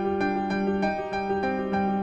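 Background music: a keyboard melody, its notes changing a few times a second over a held low note.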